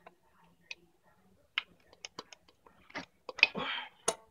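Sparse light metallic clicks and ticks from tools and small parts being worked on an RB25 aluminium cylinder head during valve spring removal, with a short scraping rustle about three and a half seconds in.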